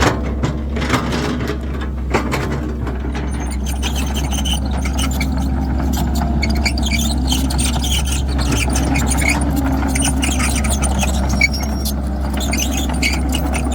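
Cat 312 hydraulic excavator working, its diesel engine running under a steady low hum, with metallic squealing and scraping from the machine as it digs and loads soil. There are a few sharp knocks near the start.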